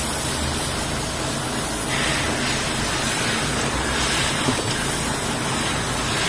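A steady, even hissing noise with a faint low hum underneath.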